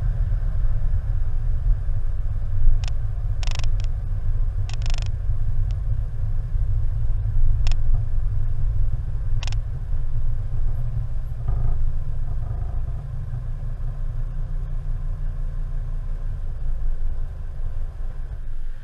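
A car driving slowly, with a steady low rumble of road and wind noise picked up by a camera mounted outside the car. A few sharp clicks and knocks come between about three and ten seconds in, and the rumble eases near the end.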